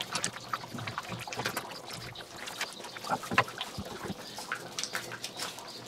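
Wooden spoon stirring thick goulash in a cast-iron Dutch oven. Wet sloshing, with many irregular knocks and scrapes of the spoon against the pot.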